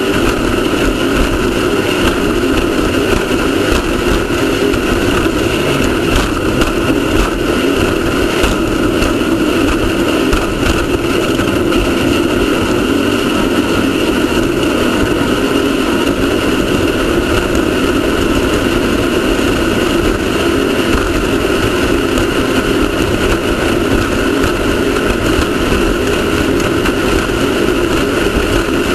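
Off-road race car's engine running hard at a steady pitch, mixed with a dense, loud rushing noise, with no clear revving up or down.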